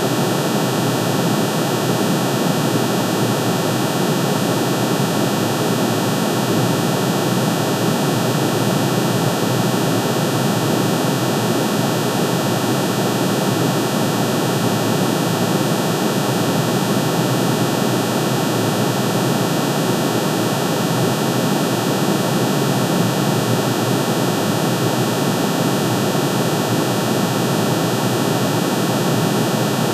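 Synthesized drone of aluminium's atomic emission spectrum: many sine waves, one for each spectral line, pitch-shifted into hearing range and summed. It holds steady throughout, a dense rushing hum with many fixed tones, like jet noise.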